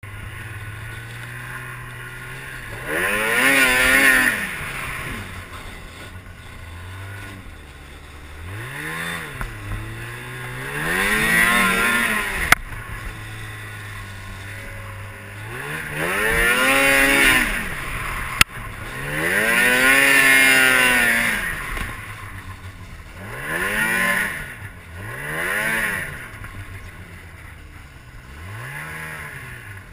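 Two-stroke twin engine of a 2007 Ski-Doo MX Z 600 XRS snowmobile, settling to a steady low idle between repeated throttle runs. Its pitch rises and falls about eight times, some short blips and some longer pulls. Two sharp clicks come near the middle.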